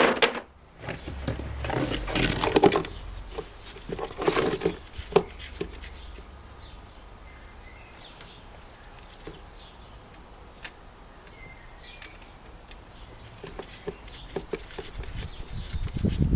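Irregular handling noises: rustling, knocks and clicks, busiest in the first few seconds and again near the end, with sparse single clicks in the quieter middle.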